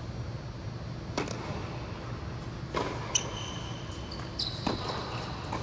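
Tennis ball being hit and bouncing on a hard court, three sharp knocks roughly a second and a half apart, with court shoes squeaking between them.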